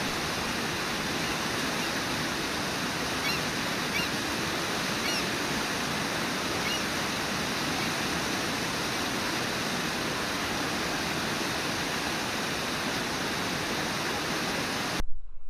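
Brooks Falls on the Brooks River rushing steadily, a dense unbroken sound of falling water. It cuts off abruptly shortly before the end.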